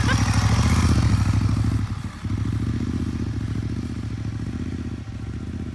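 Moto Guzzi Griso 1200 SE's V-twin engine running, with an even, rapid low pulse. It is loudest for the first two seconds, dips briefly, then runs on steadily and slowly fades.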